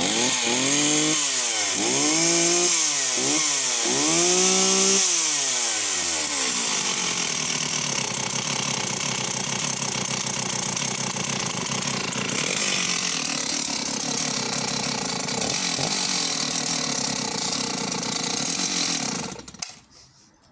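Stihl 038AV two-stroke chainsaw engine revved up and back down about five times in quick succession, then idling steadily, and switched off near the end.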